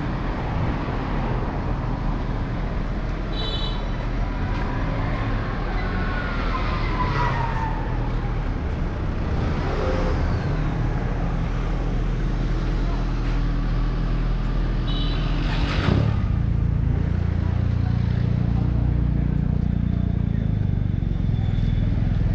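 City street traffic: car and van engines running and passing close by with a steady low rumble. A sharp click comes about two-thirds of the way through.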